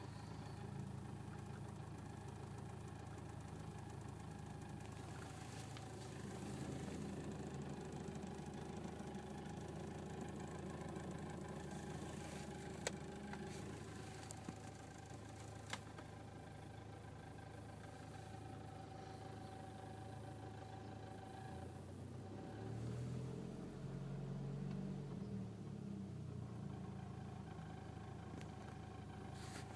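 2006 Volkswagen Golf Mk5 GTI's turbocharged 2.0-litre four-cylinder idling just after a cold start. Its pitch briefly rises and falls near the end, with two sharp clicks midway. The idle carries the weird noise the owner hears only on cold starts, below 1000 rpm.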